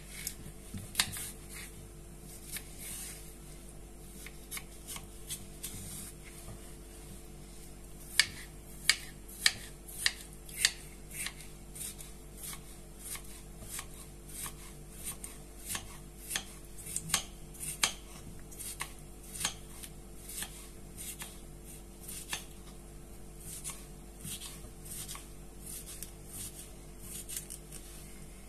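Kitchen knife dicing a cucumber on a plastic cutting board: irregular taps of the blade striking the board, with a run of five sharper, louder chops about eight to eleven seconds in.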